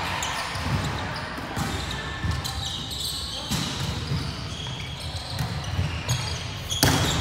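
Indoor volleyball rally on a wooden hall floor: sharp hits of the ball, short high squeaks of court shoes and players calling out, with a loud hit near the end, all echoing in a large sports hall.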